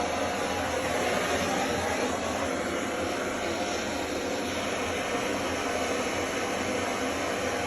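Plumbing torch flame burning with a steady hiss, as used for soldering copper pipe joints.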